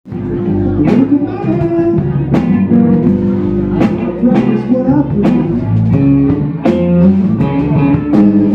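Live blues band playing: electric guitar and bass guitar over a drum kit keeping a steady beat, with a man singing.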